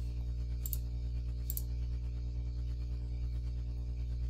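Steady electrical hum with an even stack of overtones, with a couple of faint clicks about a second and a half apart early on.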